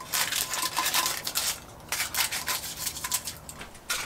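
Scissors snipping away excess parchment paper around a small metal springform pan, in quick crisp cuts with paper crinkling and a brief pause partway through. Metal pans being handled on the counter.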